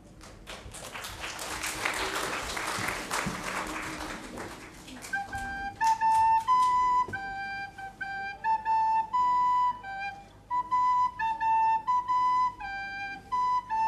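Audience clapping for the first few seconds, then a soprano recorder playing a simple melody of clear, held notes.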